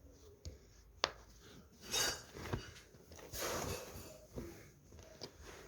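Silicone pop-it fidget toy being pressed: a handful of irregular soft pops and clicks, with rubbing and handling noise in between.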